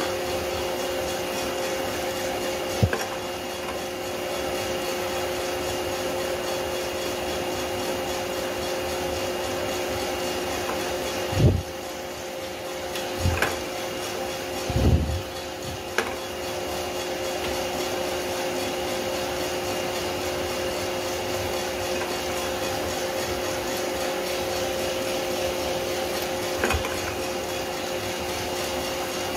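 Drum coffee roaster running steadily with peaberry beans tumbling in the drum and the motor and fan humming, in the development phase just after first crack. A few sudden knocks and clunks, the loudest a cluster near the middle, come from the sample trier being handled.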